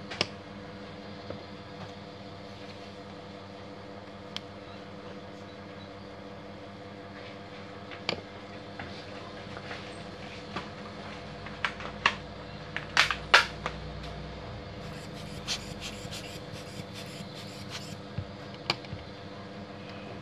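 Scattered sharp clicks and knocks of a copier's plastic spacer-roller unit being handled and worked on, with a cluster of loud clicks a little past the middle, over a steady hum with a constant tone.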